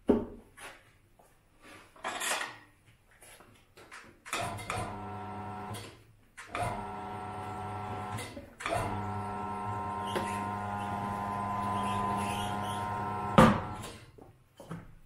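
Electric turntable motor of a 100 V BL502-100 tyre changer running with a steady hum as a car tyre's bead is worked onto the wheel rim, in three stretches with two short pauses, ending in a loud clack about thirteen seconds in. The uploader found the motor labouring somewhat under load during mounting, which he puts down to too little bead cream. Before the motor starts, a few knocks and rubbing from handling the tyre.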